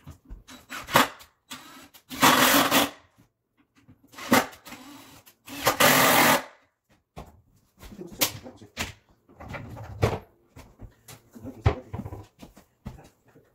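A handheld power tool runs in two short bursts, each about a second long and about three seconds apart, with scattered knocks and clicks between them.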